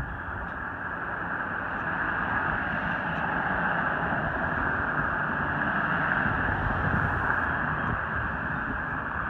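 A road vehicle passing close by: a rushing tyre-and-road noise that slowly swells, peaks about two-thirds of the way through, then eases off.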